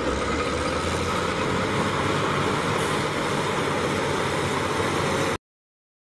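Caterpillar wheel tractor scraper's diesel engine running steadily as the machine works, cutting off abruptly near the end.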